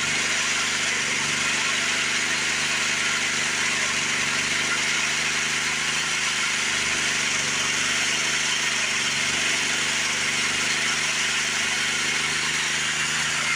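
Engine-driven homemade sawmill running steadily: a constant engine hum under a steady high hiss.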